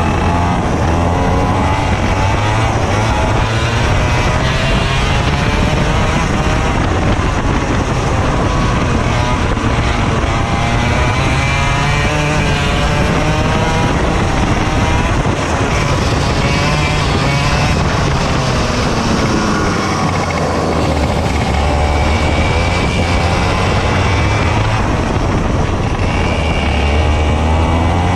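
Racing kart engine running hard at race pace, heard from the driver's seat, its pitch rising and falling again and again as the kart brakes into corners and accelerates out.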